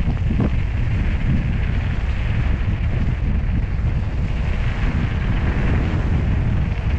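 Wind buffeting the microphone on a moving motorcycle, a steady rumble with the bike's engine and road noise beneath it.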